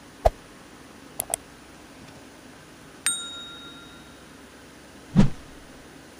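Two quick clicks, then a single bright bell-like ding about three seconds in that rings and dies away over about a second. Short knocks come at the start, and a dull thump near the end.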